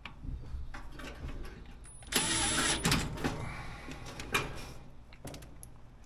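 Red cordless power driver running in one short burst of just under a second, about two seconds in, spinning one of the two screws that hold the dryer's thermal fuse to the heater housing. Light clicks and knocks of the screws and metal parts being handled come before and after.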